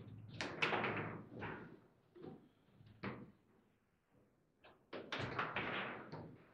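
Table football game in play: the ball clacking off the plastic figures, with the rods knocking and rattling in the table. The clatter comes in two quick flurries, over the first second or so and again about five seconds in, with single knocks between.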